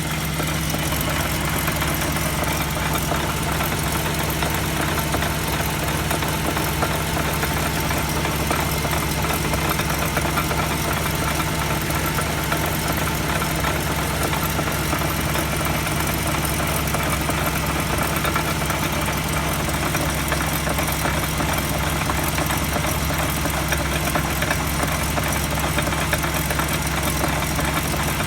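Abnormal noise from a car's wheel hub bearing picked up through an electronic mechanic's stethoscope: a steady drone with a low hum and a rough hiss over it, the sign of a failing hub bearing.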